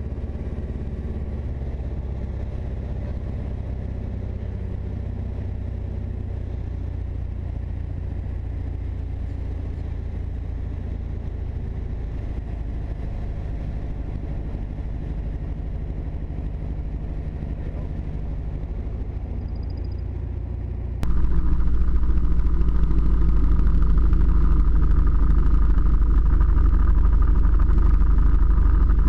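Single-engine Mooney's piston engine and propeller droning steadily on final approach, heard from inside the cabin. About two-thirds of the way in, the drone abruptly jumps louder and heavier as the plane rolls on the runway, then holds steady.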